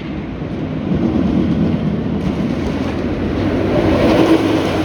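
Wildcat's Revenge, an RMC hybrid roller coaster, with a train running along its track on a test run. The rumble builds over the first seconds and is loudest near the end.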